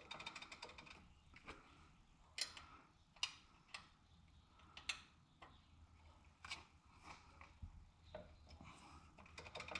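Faint, irregular light clicks of metal on metal, about ten over the span, as a wrench works at a motorcycle's shifter linkage, over a low steady hum.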